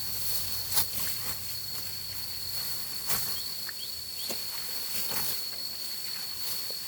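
An insect trilling on one steady high pitch throughout, with a few short knocks or taps scattered over it.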